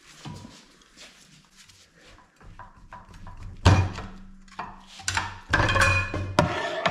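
Bench vise being cranked with a long bar to press a needle-bearing cap out of a Chevrolet Nova prop shaft's universal joint between two sockets: metal clicks and creaking under strain, a loud knock a little over halfway through, then a run of creaking and grinding near the end as the cap is forced through the yoke.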